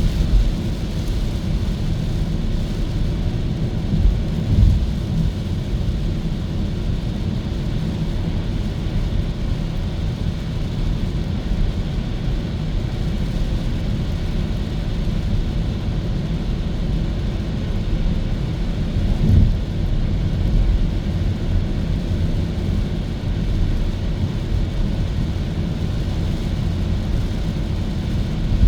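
Steady low rumble of road and tyre noise from a Hyundai Kona EV driving along, with no engine note, and a couple of brief low thumps, a few seconds in and again past the middle.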